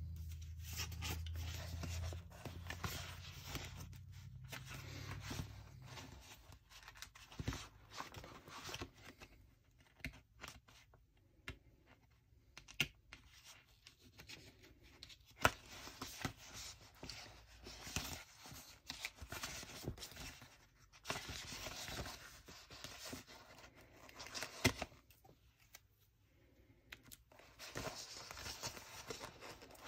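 Sticker sheets being handled and letter stickers peeled off their backing: short, irregular papery rasps and rustles with small clicks. A low hum fades out over the first few seconds.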